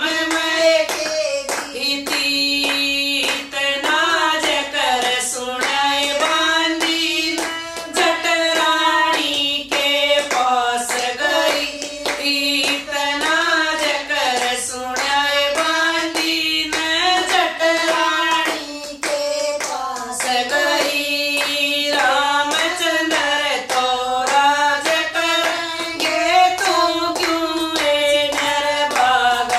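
Women's voices singing a Haryanvi bhajan, a devotional folk song, in unison without instruments, kept in time by steady hand claps.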